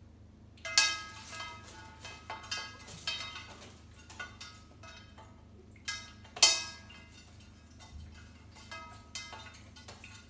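A glass clinking and ringing under irregular taps and knocks as an African grey parrot plays with it. The two loudest strikes come about a second in and about six seconds in.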